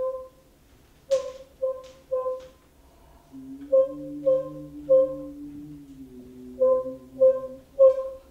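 Music: about ten short notes on one repeated pitch, a few starting with a sharp click. Under the notes in the middle runs a lower held note that dips slightly in pitch before it stops.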